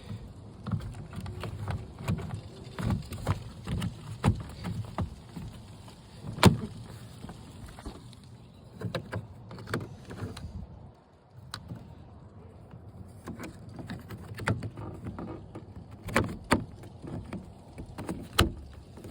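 Irregular clicks, taps and knocks of hands and tools working on a pickup truck door's panel, bolts and clips, with one sharp click about six and a half seconds in.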